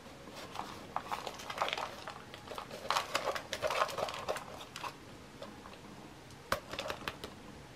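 Crackling and rustling of a thin plastic plant pot being squeezed and tipped, with loose gritty potting mix spilling and pattering into a plastic tray. Irregular clicks, thickest for the first few seconds, and one sharp click near the end.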